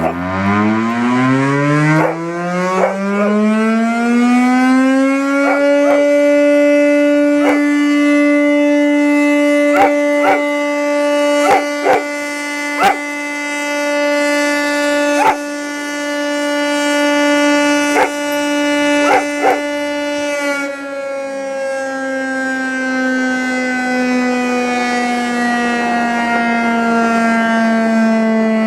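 Public siren for fire prevention week winding up over about five seconds, holding one steady tone, then slowly winding down from about twenty seconds in. A dog howls along with it in short yelps, about a dozen times.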